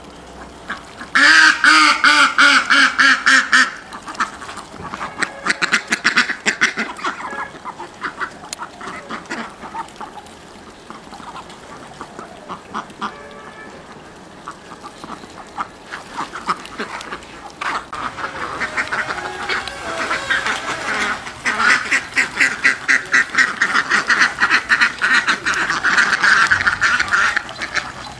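A flock of domestic ducks quacking in fast, overlapping runs of calls, loudest in a burst a second or so in and again through the last ten seconds.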